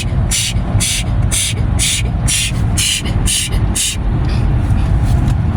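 Automatic car wash heard from inside the car: water spray hissing against the car in regular pulses about twice a second, over a steady low rumble of the wash machinery. The pulses pause briefly near the end.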